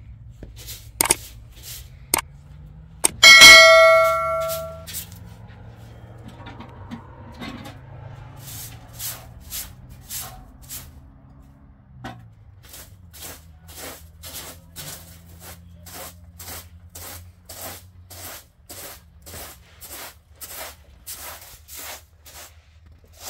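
A few sharp clicks, then one loud metallic clang about three seconds in that rings and dies away over a second or two, followed by a steady rhythm of short noisy strokes, about two a second.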